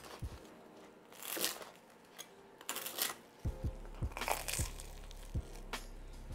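A knife crunching through crusty toasted garlic bread in a few short crackly bursts. Background music with a steady beat comes in about halfway through.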